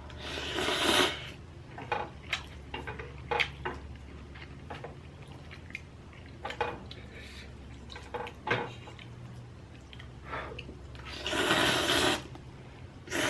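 Close-miked eating sounds of inari sushi (fried bean curd pouches stuffed with rice): moist chewing and mouth smacks with scattered small clicks, plus two longer noisy bursts, one near the start and one near the end.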